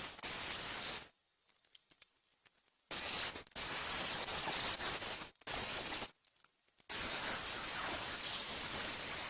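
Steady hiss of a tool cutting the steel side piece of a drift trike frame, starting and stopping abruptly three times with short silent breaks.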